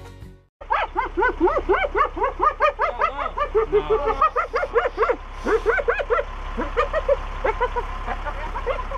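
A wild carnivore gives rapid, high yelping calls, several a second and rising and falling in pitch, over a steady low rumble.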